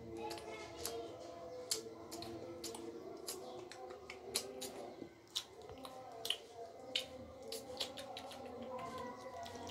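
A cat licking another cat's fur: a string of small, irregular clicks, about two or three a second.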